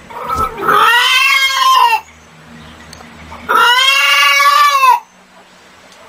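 A chicken giving two long, drawn-out calls, each about a second and a half, rising and then falling in pitch.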